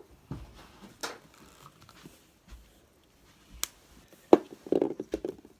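Small objects being handled on a hard surface: scattered clicks and knocks, with a sharp knock a little over four seconds in followed by a short clatter.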